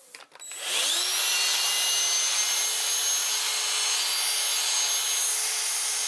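Dyson DC16 Animal handheld battery vacuum cleaner switching on about half a second in, its motor whine rising quickly, then running steadily with a high whine and a rush of air drawn through an extension pipe and brush head. The brush head's own motor-driven brush is not powered.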